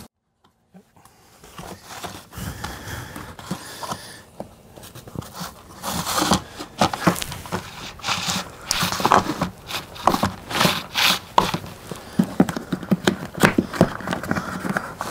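Crinkling and crackling of the backing liner being peeled off adhesive tape strips on a new RV slide ski, in irregular crackles that get louder from about six seconds in.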